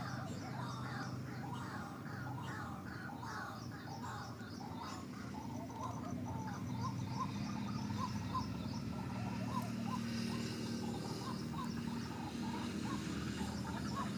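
Birds calling with many short, repeated chirping notes, crowded together at first and then settling into an even series of about two notes a second, over a low steady hum.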